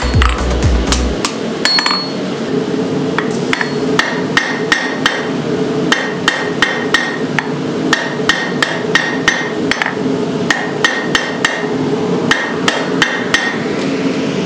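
Hand hammer striking red-hot railroad-spike steel on an anvil in a steady run of blows, about two to three a second. Each blow ends in a short metallic ring from the anvil.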